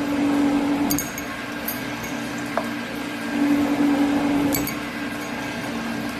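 Sheet-metal folding machine running as it bends a metal strip over a block edge, its motor hum shifting back and forth between two close pitches, with a few short metallic clinks.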